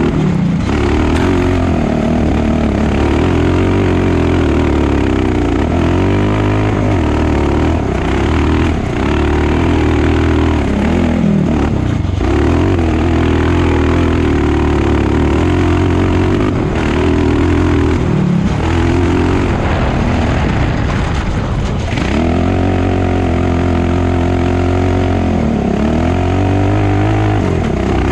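Off-road buggy's engine, recorded on board, running hard and revving up and down as it is driven over dirt tracks. The pitch rises and falls repeatedly, with brief drops several times as the throttle is lifted.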